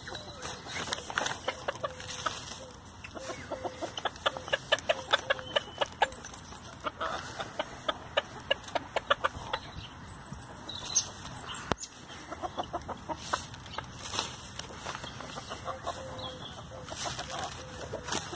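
Bantam chickens pecking and tearing at a heap of fresh-cut grass: rapid sharp beak pecks with rustling, the quickest and loudest run in the middle, along with soft low clucking.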